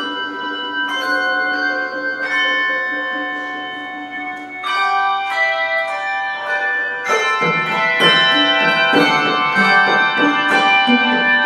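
A handbell choir playing a piece: chords of ringing bells held and left to sound, then from about seven seconds in a busier passage with quicker strikes and lower bells joining in.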